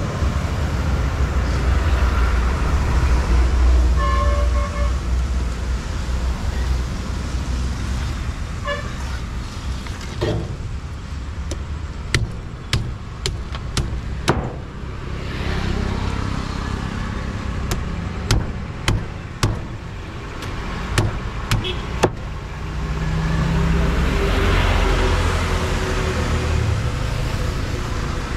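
Road traffic rumbling past, with a vehicle horn tooting briefly about four seconds in. In the middle there is a run of a dozen or so sharp knocks.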